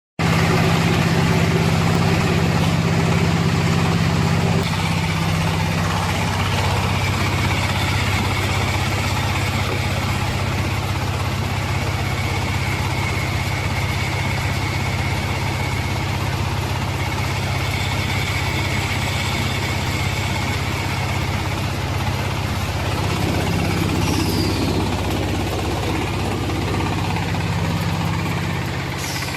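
Silage baler and wrapper machine running steadily, its engine giving a constant low hum whose note shifts about five seconds in and again near the end, while a higher whine from the working parts comes and goes.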